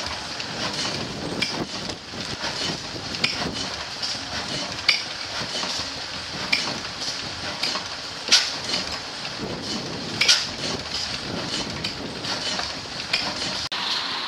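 1908 Hornsby-Akroyd 12 hp single-cylinder hot-bulb oil engine running, with sharp metallic clacks about every one and a half to two seconds over a steady mechanical clatter.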